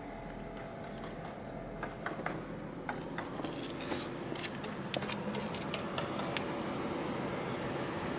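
A steady low hum, joined by a scatter of small sharp clicks and rustles between about two and six and a half seconds in.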